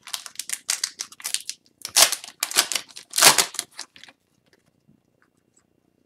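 A hockey card pack's plastic-foil wrapper being torn open and crinkled, with the cards slid out and handled: a quick run of crackles and rustles that stops about four seconds in.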